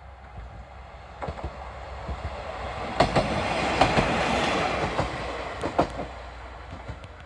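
KiHa 32 diesel railcar in its Shinkansen-styled 'Hobby Train' livery passing by. Its wheels clack over the rail joints, and the sound swells to a peak about three to five seconds in, then fades as it moves away.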